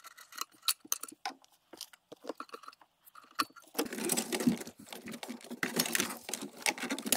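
Hands working under a car dashboard, disconnecting a cable from the heater blower motor housing and pulling the heater duct loose: scattered clicks and taps, then from about four seconds in a denser, louder crackling and rattling of the duct being worked free.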